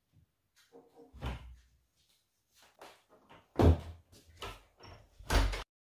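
A door being handled: a string of knocks and thuds, the loudest about three and a half seconds in and another strong one just before the sound cuts off abruptly.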